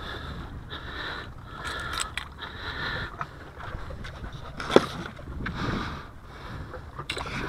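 Close handling noise of fishing tackle: clicks and rustles as a metal snap swivel and lure and a rod bag are handled, with one sharp click about five seconds in. A low rumble of wind on the microphone runs underneath.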